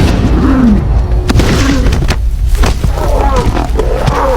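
Lions growling and snarling in short, bending calls over a heavy low rumble, with background music.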